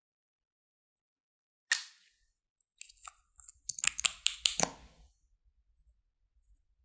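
Glossy slime being worked: one sharp click a little under two seconds in, then a quick run of wet, sticky clicks and pops.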